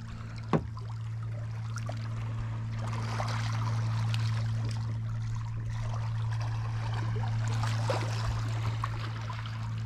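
Water trickling and lapping around a kayak, with small clicks and one sharp knock about half a second in, over a steady low hum.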